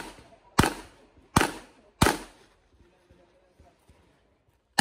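Handgun fired in a quick string of three shots about three-quarters of a second apart, then a pause of about two seconds, then another shot right at the end.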